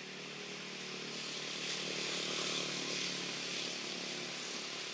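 A motor engine running in the background, growing louder to a peak about halfway through and then easing off, with a steady hiss.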